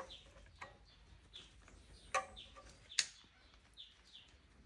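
Birds chirping faintly in short, scattered calls. Two sharp clicks sound a little after two seconds and again about a second later.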